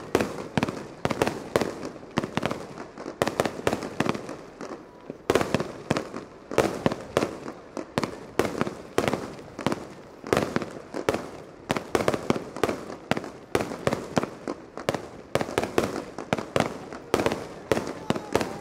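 Fireworks display: a continuous barrage of shell bursts, several sharp bangs a second, thinning briefly about four to five seconds in before picking up again.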